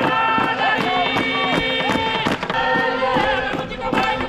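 A group of voices singing together in long held notes, with sharp beats keeping time about three times a second.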